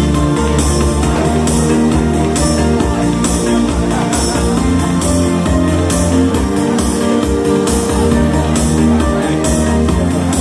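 Loud amplified music: an instrumental passage with a steady beat and held notes, with no singing.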